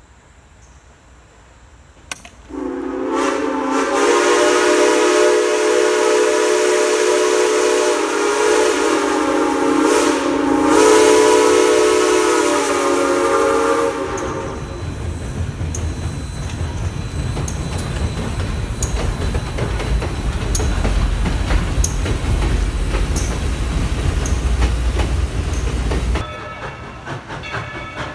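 A steam locomotive's chime whistle blows one long blast of several tones at once, dipping briefly about ten seconds in before it stops. The train then rumbles across a steel girder bridge with regular wheel clicks, until the sound cuts off suddenly near the end.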